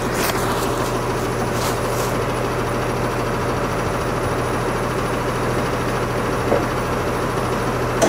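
Small gasoline engine of a portable bandsaw mill idling steadily, with a few light knocks in the first two seconds.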